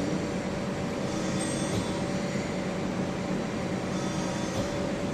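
Steady hum and hiss of running machinery, with a short faint high whistle about a second and a half in; there are no punching strokes.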